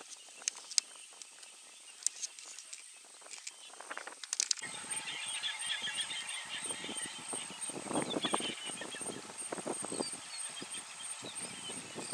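Outdoor bush ambience: small birds chirping and a steady high-pitched buzz, with rustling and scuffing sounds loudest around eight and ten seconds in. The first four and a half seconds are quieter, with only scattered clicks, until the sound changes abruptly.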